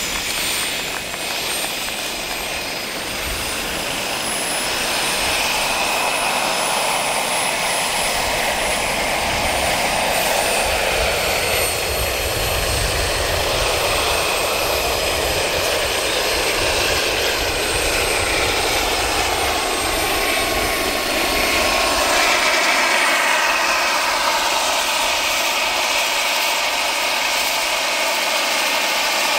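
Turbine-powered Kaman K-MAX scale RC helicopter running under power, a steady turbine whine over rotor noise, as it lifts off and hovers with a load slung beneath. The whine glides slowly up and down in pitch, and grows somewhat louder a few seconds in.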